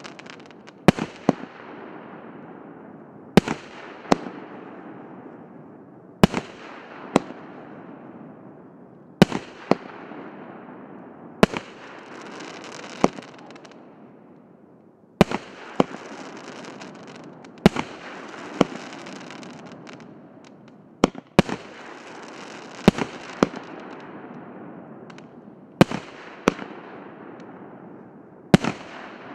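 A 36-shot, 2-inch consumer firework cake firing shot after shot: about ten shots, each heard as a pair of sharp bangs, every two to three seconds. Each shot is trailed by a fading hiss.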